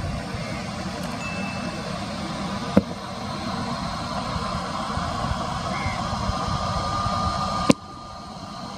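Airliner jet engines running steadily, with a faint whine coming in about six seconds in. A sharp click sounds about three seconds in and another near the end, after which the level drops suddenly.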